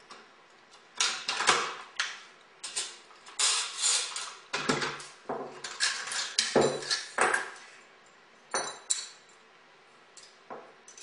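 AR-15 rifle being field-stripped at speed: a quick, irregular run of metallic clicks, slides and clatters as parts are pulled out and set down, thinning to a few clicks near the end.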